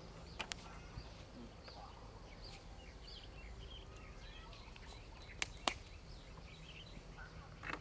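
Quiet outdoor background: a steady low rumble, scattered faint high chirps, and a few sharp clicks, one about half a second in and two close together about five and a half seconds in.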